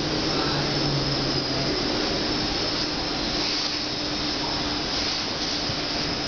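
Munich U-Bahn Type A train running, heard from inside the passenger car: a steady rushing rumble and hiss of wheels and running gear, with a faint steady hum underneath.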